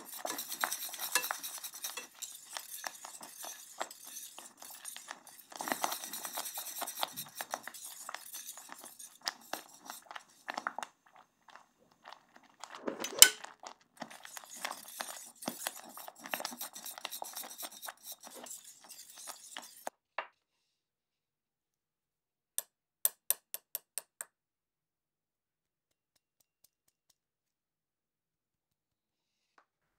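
A wire whisk stirs a coconut-milk mixture in a saucepan, with quick, busy scraping and clinking against the pan's sides and bottom. There is one louder clank about 13 seconds in, and the whisking stops at about 20 seconds. A few seconds later comes a quick run of about six light clicks.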